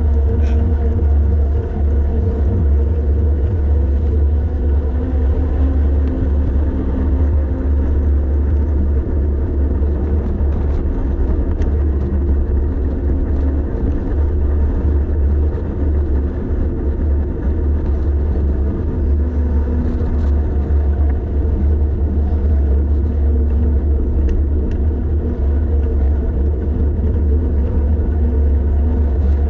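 Wind buffeting the microphone of a camera on a bicycle going downhill: a steady, loud, low rumble.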